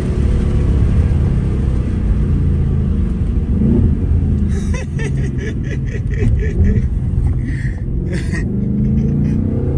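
Ford Mustang GT's 5.0 Coyote V8 running on the move, a deep, steady rumble whose pitch bends up and down near the start and again near the end. A quick run of sharp clicks sounds over it from about the middle to a second before the end.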